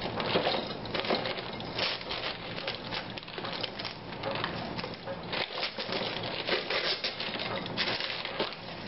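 Gift paper rustling and crinkling as a present is unwrapped by hand: a dense, continuous crackle full of quick, sharp crunches.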